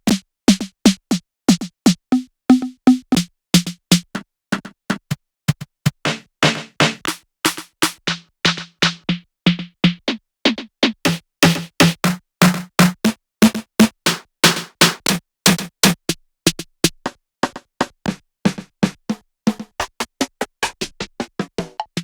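Snare drum samples from a reggaeton, trap and dembow sample library, auditioned one after another: a quick string of single short snare hits, about three or four a second, with brief silence between them.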